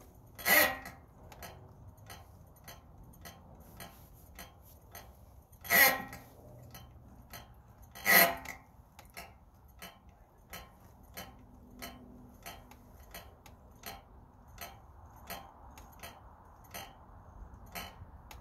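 Three pulls on the starter rope of a 1963 Evinrude Sportwin 10 hp outboard, a rough rasp each time, the second about five seconds after the first and the third two seconds later, on a cold first start after servicing; the motor cranks but does not catch. A faint regular tick, a little more than once a second, sounds between the pulls.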